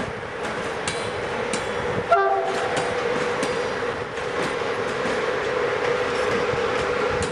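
CFR electric locomotive rolling slowly through the station with a steady whine and wheels clicking over rail joints. A short horn blast sounds about two seconds in.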